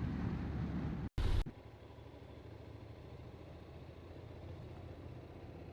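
Motorcycle riding noise on a helmet microphone: engine and wind rumble. About a second in it cuts out abruptly, followed by a brief loud crackle, then a quieter, steadier engine and road hum.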